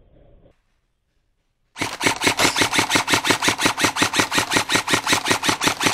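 Airsoft electric gun firing on full auto: a steady, rapid stream of sharp shots at about ten a second. It starts nearly two seconds in, after a moment of dead silence.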